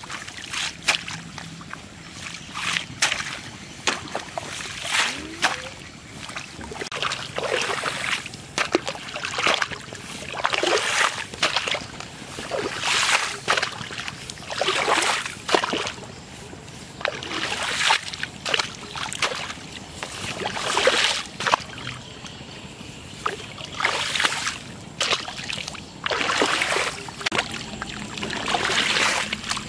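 Muddy water splashing and sloshing as a spade scoops it and throws it out of a flooded pit, one splash every second or two at an uneven pace.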